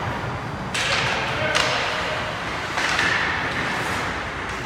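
Ice hockey play in an indoor rink: three sharp hits, each trailing off, from skate blades scraping the ice and sticks striking the puck, over the rink's steady background noise.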